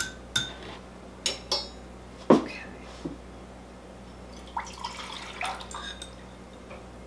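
A wire whisk clinks against a glass measuring cup a few times, with a louder knock about two seconds in. A sauce mixture is then poured from the glass cup into a small saucepan, with faint liquid splashing.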